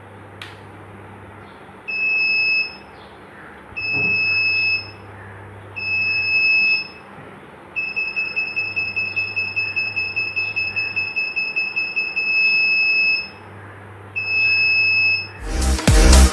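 Buzzer of a DIY Arduino vibration-sensor bike alarm going off as the bike is disturbed: one high-pitched steady tone in three beeps of about a second each, then a long beep of about five seconds with a rapid flutter, then one more short beep. Electronic dance music comes in near the end.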